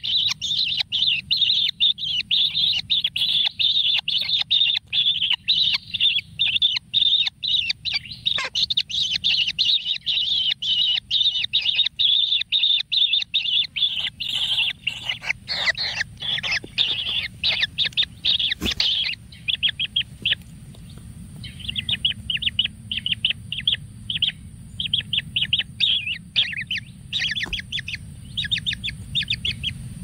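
Kingfisher nestling's high, rapid begging chirps during feeding. The chirping is continuous for about the first twenty seconds, then breaks into short runs of chirps with gaps between them.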